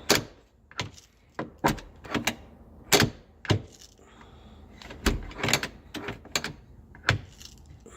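About a dozen sharp clicks and knocks at irregular intervals: the hardtop's latch hardware and parts being handled and locked.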